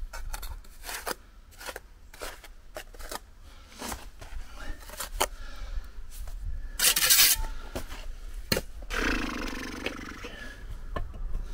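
Steel trowel scraping and tapping on concrete blocks and mortar while blocks are laid: a run of short clicks and scrapes, with a louder scrape about seven seconds in and a longer one about nine seconds in.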